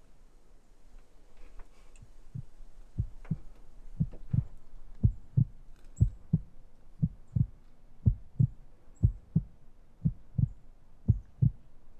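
Heartbeat sound effect: paired low lub-dub thumps about once a second, starting faint and growing louder from a few seconds in. It stands for the bowhunter's racing heart, the buck fever of the draw.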